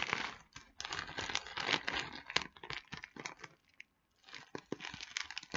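Large plastic bag of Timothy hay crinkling and rustling as it is handled, in irregular crackly bursts with a short pause about four seconds in.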